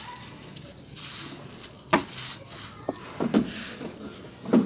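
Hands crumbling and sifting dry cement-sand clumps, the grains trickling and pattering onto the pile. Several sharper crunches of clumps breaking or dropping come about two seconds in, a few more a second later, and the loudest near the end.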